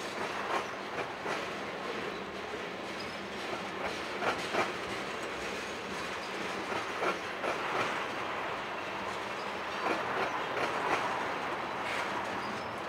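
Freight train tank cars rolling past with a steady rumble, their wheels clacking over rail joints in irregular pairs of clicks.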